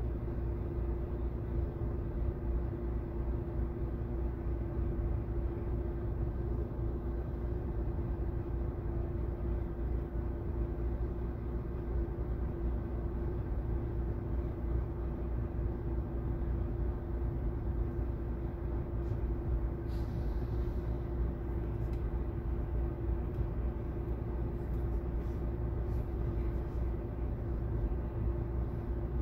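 Steady low car cabin rumble from engine and road, with a constant hum underneath, as the car creeps through traffic.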